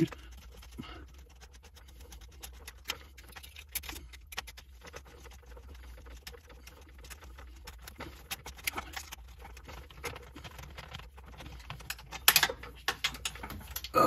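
Light, irregular clicks and scrapes of a metal hose clamp and screwdriver being worked around a PVC pipe, with a louder cluster of clicks near the end, over a faint steady low hum.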